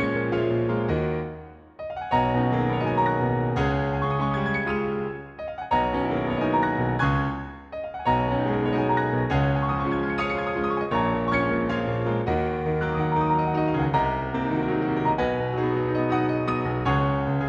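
Garritan CFX sampled concert grand piano, a virtual Yamaha CFX, playing a dense, full-chorded arrangement. The sound drops away briefly between phrases about two, five and a half, and eight seconds in.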